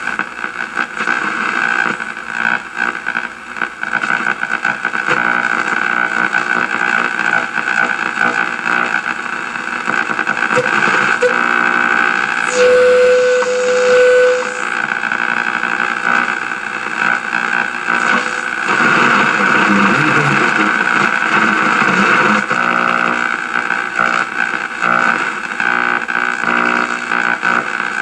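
Shortwave static and interference from a 1937 Sears Silvertone tube radio's speaker while it is tuned on the shortwave band. The noise is continuous and hashy, and a steady whistle tone sounds for about two seconds around halfway through.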